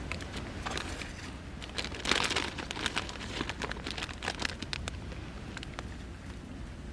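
Crinkling and rustling with many small clicks, loudest about two seconds in, over a steady low rumble.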